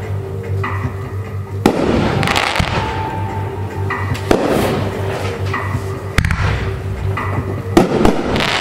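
Consumer aerial fireworks going off: about five sharp bangs, each followed by a hissing trail as the burst spreads, with music playing underneath.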